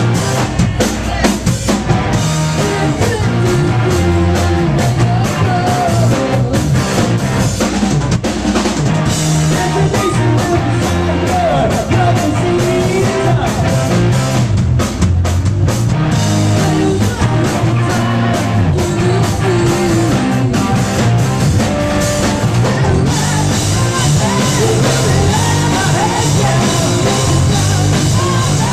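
Live rock band playing loud, with drums, guitar and a singer's voice, recorded from within the crowd.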